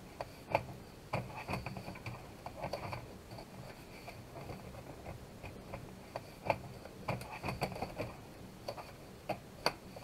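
Plastic bottom cover of a Dell G3 laptop being fitted back onto the chassis around the hinges: scattered light clicks and taps of plastic on plastic.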